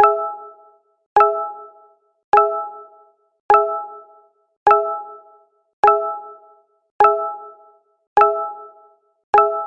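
Google Hangouts notification sound, a short chime of several tones at once with a sharp start and quick fade, repeating about every 1.2 seconds, nine times.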